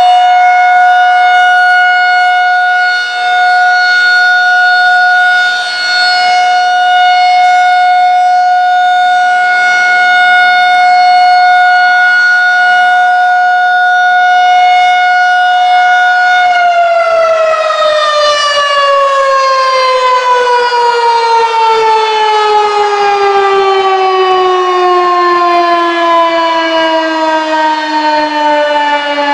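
Federal Signal 2001-SRN rotating electromechanical tornado siren sounding a loud, steady single tone that swells and fades slightly as the horn turns. About halfway through, its pitch starts falling steadily as the siren winds down at the end of the test.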